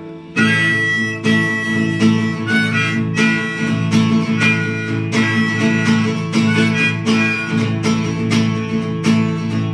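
Acoustic guitar strummed in a steady rhythm, about two strokes a second, as the instrumental intro to a folk song, chords ringing; it comes in just under half a second in.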